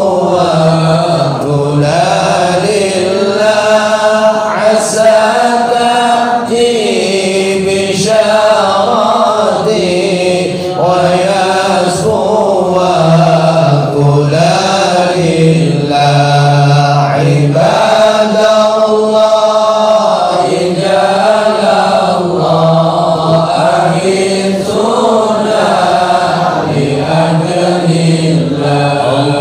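Islamic devotional chanting by men's voices in Arabic, sung in long held, melismatic lines with brief pauses for breath every few seconds.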